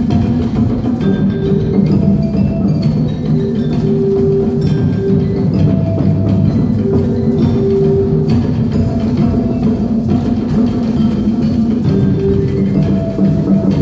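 Percussion ensemble playing live: drums, timpani and drum kit keep a steady pulse under long held pitched notes and mallet-keyboard strokes.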